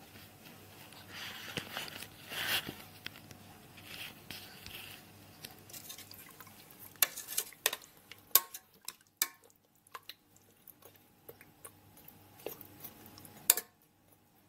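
Tomato sauce and sardines being put into a stainless steel pressure cooker pot: soft, wet sliding sounds in the first few seconds, then a run of sharp clinks and taps of a utensil against the metal pot.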